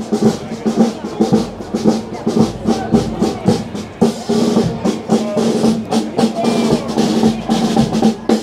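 A small marching brass band playing as it walks, with a tuba and a bass drum: a held low brass note over a regular drum beat.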